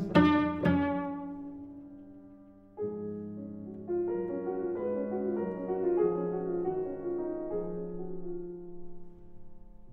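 Cello and Bösendorfer grand piano playing classical chamber music. A loud chord at the start rings and dies away over about three seconds; then long, sustained bowed cello notes begin, with the piano beneath.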